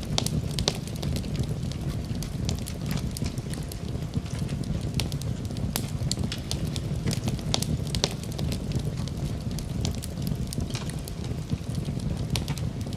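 Wood fire in a fireplace crackling, with frequent sharp irregular pops and snaps over a steady low rumble.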